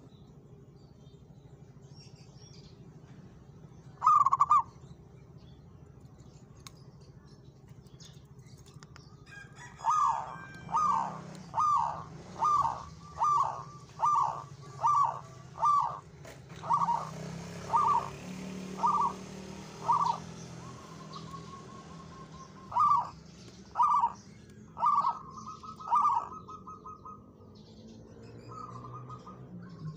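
Zebra dove cooing: one short note about four seconds in, then a long run of short, evenly spaced coos that slows as it goes, and a last group of four about a second apart near the end.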